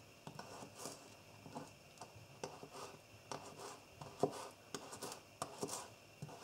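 Spyderco Native 5 folding knife slicing a garlic clove on a cutting board: faint, irregular taps, a couple a second, as the blade cuts through and meets the board.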